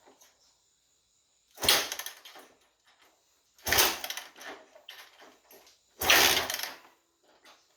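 Three kick-start attempts on a 1987 Kawasaki KX250 two-stroke, about two seconds apart: each turns the engine over for a moment in a short rattling burst that dies away, and the engine does not keep running between them.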